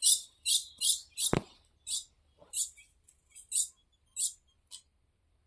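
Small songbird giving a series of short, high chirps, about nine notes spaced a half second to a second apart, with one sharp knock about a second in.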